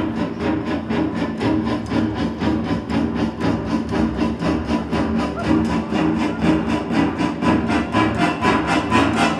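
Symphony orchestra playing, led by the violin section bowing a fast, even pulse of short repeated strokes, about six a second, over sustained lower notes.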